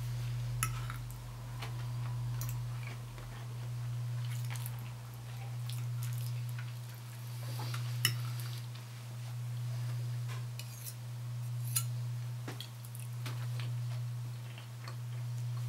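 Knife and fork clinking and scraping on a china plate as food is cut and picked up, with sharp clinks about half a second in, about eight seconds in and near twelve seconds. Under it runs a low steady hum that swells and fades about every two seconds.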